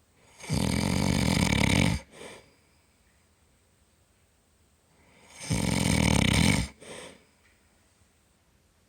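A man snoring loudly: two long snores about five seconds apart, each lasting over a second and followed by a short, softer breath sound.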